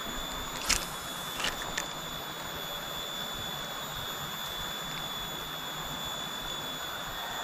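Quiet outdoor background with a steady, high-pitched whine, and a few light clicks in the first two seconds.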